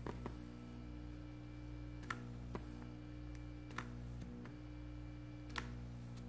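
Steady hum of a modified aquarium pump working as a vacuum and pressure source, with several sharp clicks every second or two from a small 2-way coffee-maker solenoid valve converted to 3-way, switching as its lead is touched to the terminal.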